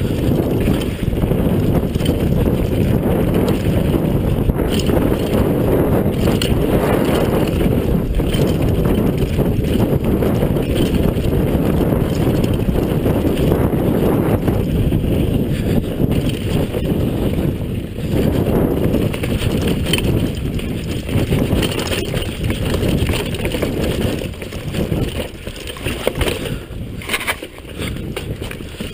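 Downhill mountain bike descending a dirt trail at speed: a steady low rush of wind on the microphone mixed with tyre rumble, with scattered rattles of the bike over bumps. It eases a little in the last few seconds.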